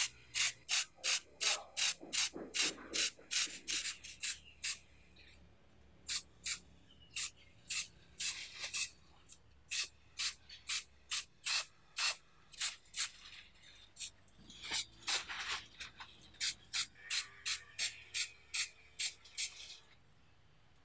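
Aerosol spray-paint can sprayed in short hissing bursts, about two a second, with a few brief pauses between runs.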